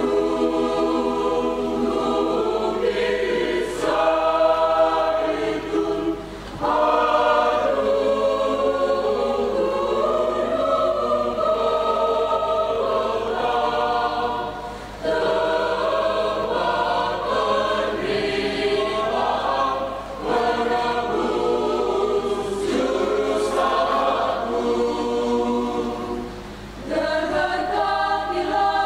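Mixed choir of women's and men's voices singing a hymn together, in phrases broken by brief pauses.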